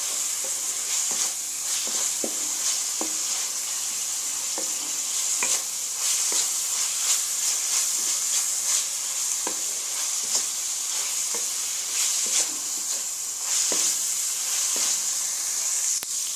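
Minced beef frying with chopped garlic and ginger in oil in a metal pan, sizzling steadily on a raised flame, with a wooden spatula scraping and tapping the pan irregularly as it is stirred.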